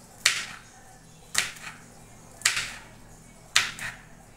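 Kitchen knife chopping green chillies on a wooden cutting board: four sharp knocks of the blade on the board, about one a second, each with a short tail.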